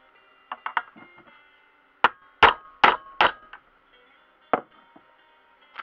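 Hammer tapping on the bearing cups of a new universal-joint cross clamped in a bench vise, seating it in the propeller-shaft yoke. A few light knocks come first, then four sharper strikes about 0.4 s apart, with a faint metallic ring, and one more knock later on.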